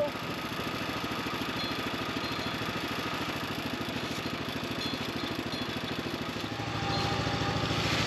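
Kohler engine on a Norwood portable sawmill running steadily after being started in the cold, with an even firing pulse. About six and a half seconds in, the sound gets a little louder and deeper.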